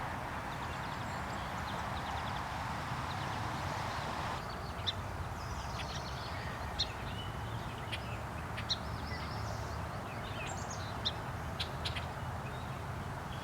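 A bird's short, sharp, high-pitched chirps or clicks, scattered irregularly, over a steady background hum; the background changes abruptly about four seconds in, where the chirps begin.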